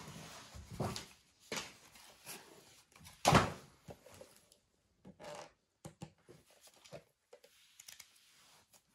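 Handling noise of a perfume gift box: irregular rustling, scraping and light knocks as it is picked up and turned in the hands, with one louder thump about three and a half seconds in.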